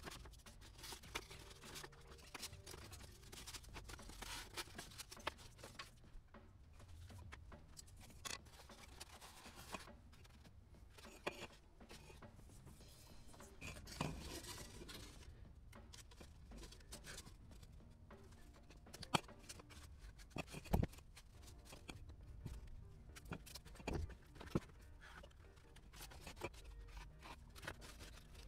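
Model-building bench work on a wooden rib wing: scattered light clicks, taps and scraping as small parts are handled and cut, with a few sharper knocks in the second half.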